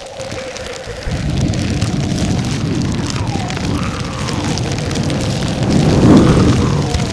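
Foley fire sound: a steady crackling roar of flames. It thickens about a second in and swells loudest about six seconds in.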